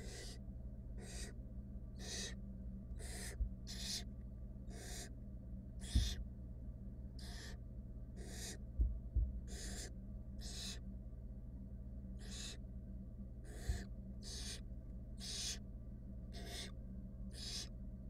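Barn owls in a nest box giving repeated rasping hiss calls, about one a second, the typical begging hiss of barn owl nestlings. A steady low electrical hum runs underneath, with a few brief low thumps, the loudest about six seconds in.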